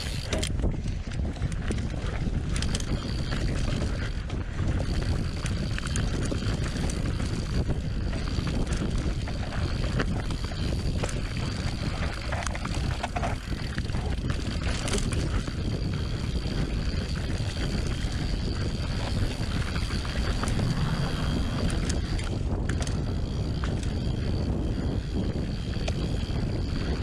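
Mountain bike descending a dirt singletrack at speed: a steady rumble of tyres on the trail with frequent short rattles and clicks from the bike, and a faint steady high whine.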